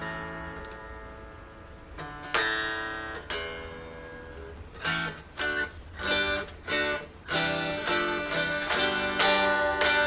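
Harley Benton Red Special-copy electric guitar played unplugged, its strings sounding thin and acoustic. A couple of strummed chords are left to ring out, then a quicker run of picked chords starts about five seconds in.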